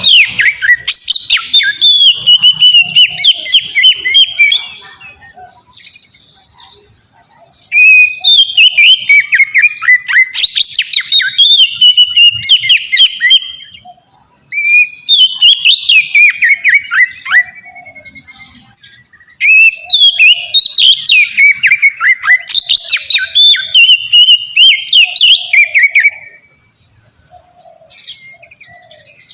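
Oriental magpie-robin (kacer) singing a long, melodious, varied song of rapid whistled notes and chattering clicks, in several bouts of four to six seconds separated by short pauses.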